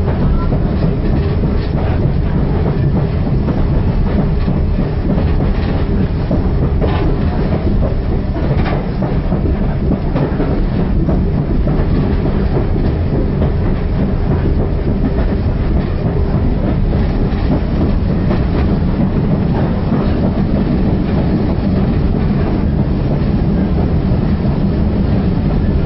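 Passenger railway carriage running along the track, heard from inside the coach: a steady rumble of wheels on rails with scattered clicks as the wheels pass over rail joints.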